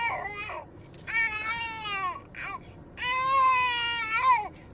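A girl crying in long, high-pitched wailing sobs, about three drawn-out wails with short breaks between them.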